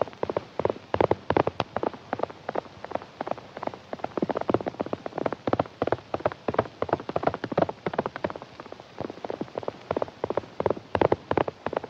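Galloping horses' hooves: a fast, irregular clatter of many hoofbeats from several horses at a run, with a few louder strikes.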